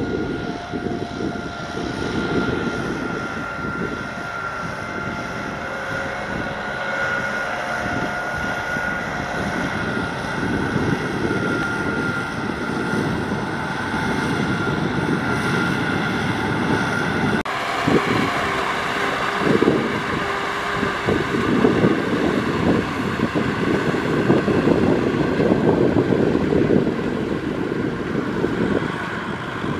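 Kubota M6040SU tractor's four-cylinder diesel engine running steadily under load while towing a trailer of rice sacks, a constant drone with a faint whine over it. The sound changes abruptly a little past halfway and carries on.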